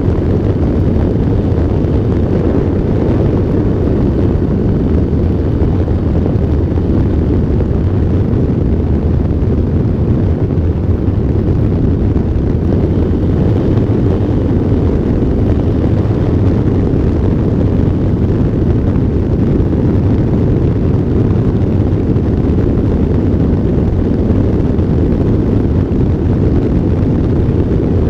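Steady low rumble of airflow buffeting a wing-mounted camera's microphone as an electric ultralight aircraft flies, mixed with the noise of its propeller.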